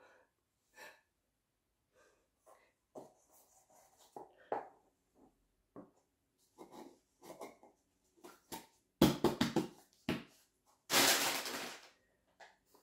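Small objects and cardboard packaging being handled on a table: scattered light clicks and knocks, a few louder knocks about three quarters of the way in, and a louder rustle or scrape lasting about a second near the end.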